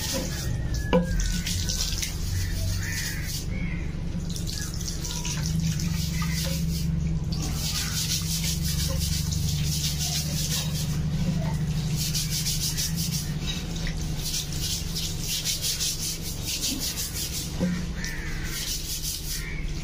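Water running and splashing while green bamboo tubes are scrubbed by hand, rapid rubbing strokes over the flow, with a low steady hum underneath. A couple of sharp knocks, bamboo on wet concrete, about a second in and near the end.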